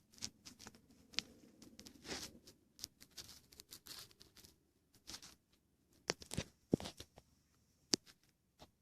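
Irregular rustling, crinkling and clicking of things being handled by hand, with a few sharper separate knocks between about six and eight seconds in.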